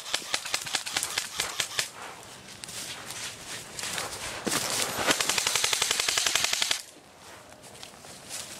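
Airsoft M4 rifle firing a rapid full-auto burst of about two seconds, starting about four and a half seconds in. Before it come scattered clicks and rustles of footsteps running through dry leaf litter.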